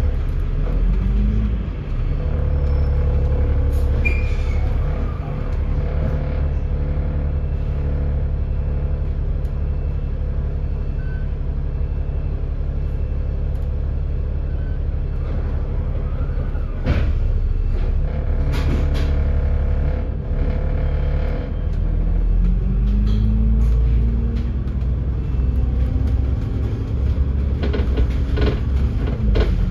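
Dennis Enviro500 MMC double-decker bus running, heard from on board: a steady low engine drone whose pitch rises as the bus pulls away about a second in and again about two-thirds of the way through. A few short sharp knocks or hisses come in the middle and near the end.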